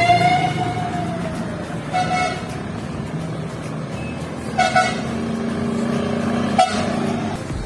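Horn toots at a gathering of rally cars. First a long blast that rises at its start and then slowly sags, then short toots about two seconds in, a quick double toot a little before five seconds, and one more near the end, over the steady hum of engines running.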